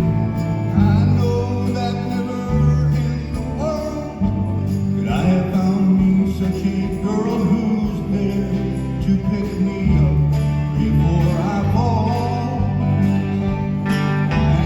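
Live band playing a song: held bass notes and steady drums with jingling percussion, under melody lines that glide in pitch.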